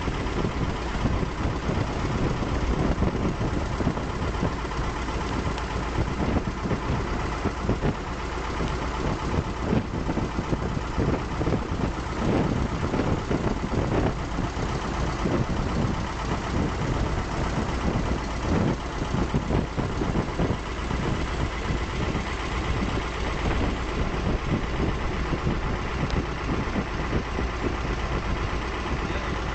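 A motorboat's engine running steadily while the boat cruises, a constant low drone with a faint whine over it.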